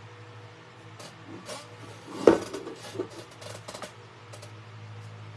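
A few short knocks, taps and scrapes from a paintbrush and a metal tray being handled on a work table, the loudest just over two seconds in, over a steady low hum.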